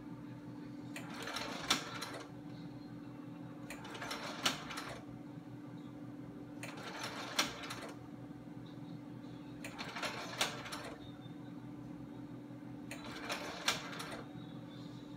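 Bell & Howell Ringmaster slide projector running with a steady motor and fan hum, its slide-change mechanism clattering through a cycle about every three seconds, five times, as it advances slide after slide.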